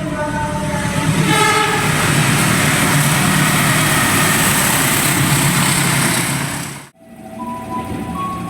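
KRL Commuterline electric train sounding its horn, a chord of several tones, which fades after a second or so into the loud, steady noise of the train running close by. About seven seconds in the sound cuts off and another train's horn starts, a steady chord.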